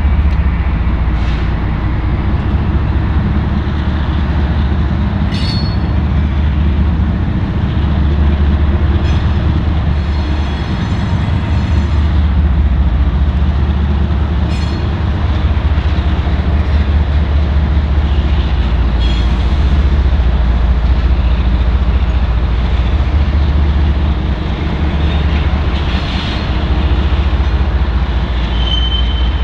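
BNSF diesel freight locomotives passing, their engines giving a steady low rumble. Wheels click over the track joints and switches a few times, and there is a brief high wheel squeal near the end.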